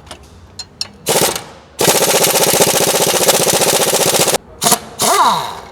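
Impact wrench hammering on a suspension bolt: a short burst, then a steady rapid rattle of impacts for about two and a half seconds, then two brief bursts near the end, the last winding down in pitch.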